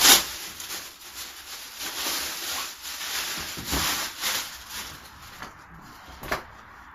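Plastic packaging rustling and crinkling as a kayak seat is unwrapped by hand, loudest in a sharp crackle at the start and trailing off toward the end.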